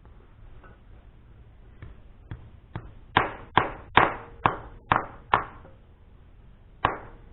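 Hammer driving termite-treatment hole plugs down into holes drilled for termite treatment: a few light taps, then six hard strikes about two a second, a pause, and one more strike near the end.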